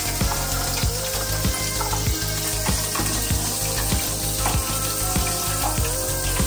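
Water spraying steadily from the hand shower of a Roca Victoria-T thermostatic shower column, run to test a newly fitted thermostatic cartridge. Background music with a steady beat plays underneath.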